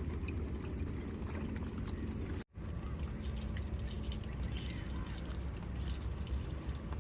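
Water pouring and trickling, with small scattered clicks and splashes, as crabs are washed. The sound cuts out abruptly for a moment about two and a half seconds in.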